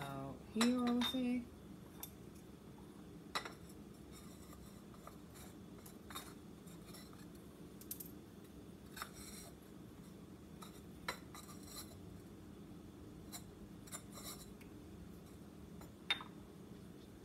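Scattered light clicks and clinks of small terracotta flower pots and craft tools being handled on a hard countertop, one every second or two.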